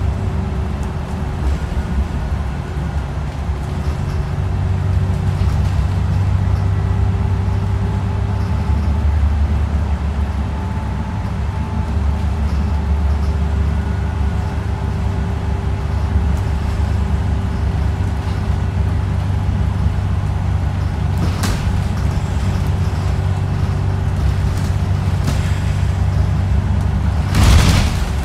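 Inside a moving bus: steady engine and road rumble under a steady drone. Two brief noise bursts come late on, then a louder one of about a second near the end.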